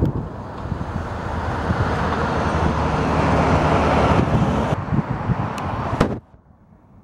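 Diesel freight train rolling by: the steady rumble of the locomotives' engines under the noise of hopper-car wheels on jointed rail, with a few sharp clicks near the end. The sound cuts off abruptly about six seconds in, leaving only a faint background.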